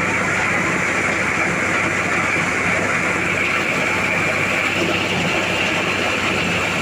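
Motorised corn sheller running steadily, a loud, even mechanical din with a constant engine hum beneath.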